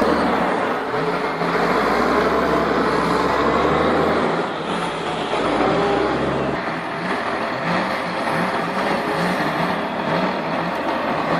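Engine of a log-loading machine running hard as it drags a heavy log. A low pulse repeats about two or three times a second in the second half.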